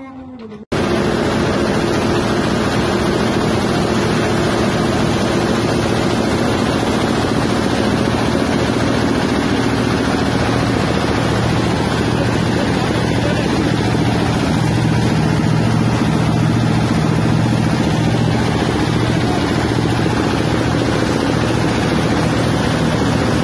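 Grinding mill and its drive engine running at full speed: a loud, steady mechanical drone with a low hum, starting suddenly about a second in.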